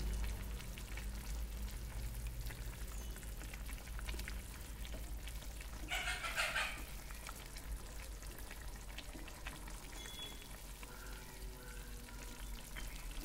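Chicken curry in a pan crackling and sizzling faintly as it cooks, stirred with a wooden spatula, with one brief louder stir about six seconds in.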